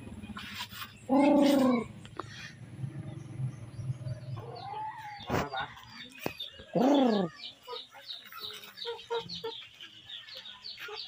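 Chickens calling: a loud drawn-out call about a second in, a shorter one around the middle and another loud call falling in pitch a little later. Soft clucks and many quick high chirps follow in the last few seconds.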